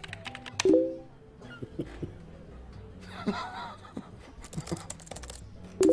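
Two short chat-message notification tones, one about a second in and one at the very end, with light laptop keyboard clicks and a brief laugh between them.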